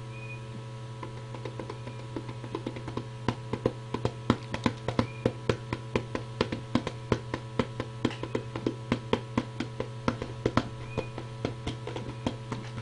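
Hands pressing and folding a paper cover over the open end of a cardboard tube: irregular sharp taps and crinkles, several a second, starting about a second in, over a steady electrical hum.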